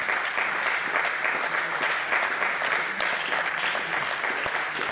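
Spectators applauding steadily in a reverberant sports hall after a point in a table tennis match, fading slightly near the end.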